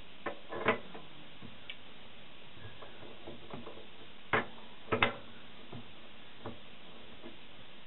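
Sharp metal clicks and knocks from a chuck key and the jaws of a mini lathe's three-jaw chuck being worked by hand, with the lathe stopped. There are two clicks near the start and a louder cluster of three about four to five seconds in, with fainter ticks between, over a steady hiss.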